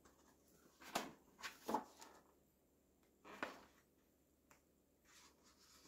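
Pages of a thin paperback picture book being opened and turned by hand: a few short paper rustles and soft taps about a second in and again about three and a half seconds in, with near silence between.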